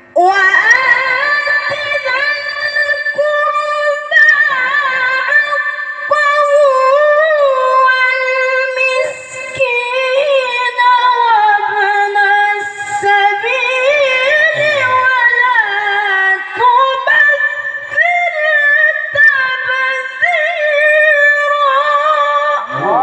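A qari reciting the Quran (tilawah) in one long, unbroken melodic phrase in a high register, with wavering ornaments and long held notes.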